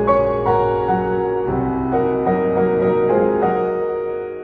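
Slow, gentle piano music with sustained chords and a low bass, the notes changing every half second or so.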